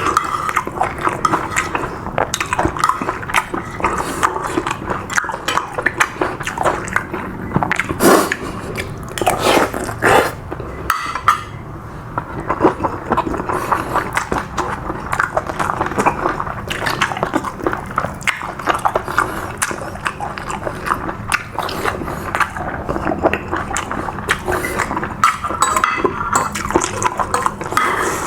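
Close-up chewing and eating sounds, with irregular wet clicks and smacks of mouthfuls of stir-fried seafood and rice, and now and then a louder slurp or gulp.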